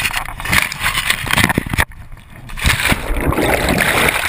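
Splashing and churning river water as the camera plunges into it, with a brief dip about two seconds in, then a loud, steady underwater rush of bubbles.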